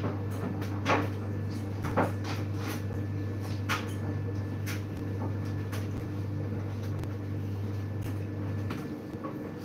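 A steady low hum from a running household appliance cuts off about a second before the end. A few sharp knocks and clicks sound over it, the loudest about one and two seconds in.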